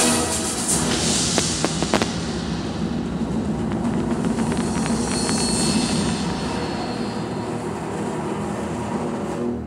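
Fireworks display firing: a continuous dense rumble of launches and bursts with crackling stars, several sharp bangs in the first two seconds. It cuts off abruptly at the end.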